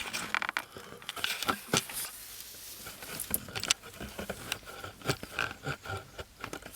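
Tools and materials being handled: scattered clicks, knocks and scrapes, with a brief buzz about half a second in.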